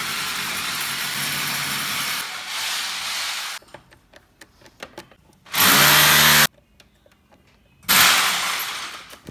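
A power tool runs steadily, then stops. Small clicks of a screwdriver working the screws of an air-conditioner terminal block follow, then two short loud bursts of the power tool, the second trailing off.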